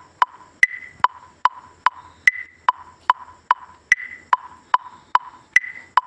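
Steady electronic click track, like a metronome: sharp ticks about two and a half times a second, every fourth tick higher-pitched.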